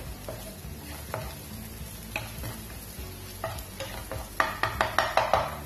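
Wooden spatula stirring and scraping frying onions and ginger around a nonstick frying pan, with the oil sizzling. Near the end comes a quick run of louder scraping strokes.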